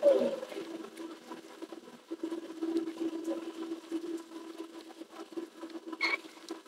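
Hand-stitching a leather boot's welt: the thread squeaks and rasps as it is drawn tight through the leather. The loudest is a falling squeak right at the start, with a short high squeak near the end, over a steady low hum that drops out briefly early on.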